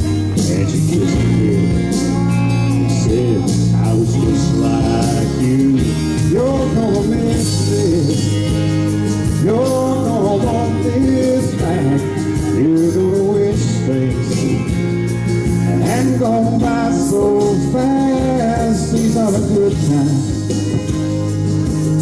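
A country song with a singer over guitar and band backing, playing steadily.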